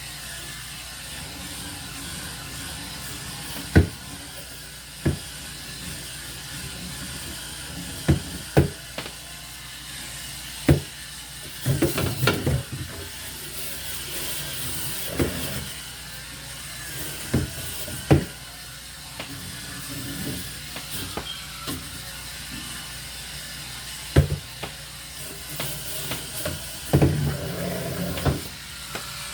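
Irregular knocks and clatters from handling and scrubbing refrigerator parts, over a steady hum and hiss; a quick run of knocks comes about twelve seconds in and another near the end.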